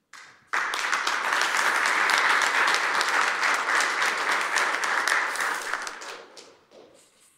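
Audience applauding. The clapping starts abruptly about half a second in, holds steady, then dies away over the last couple of seconds.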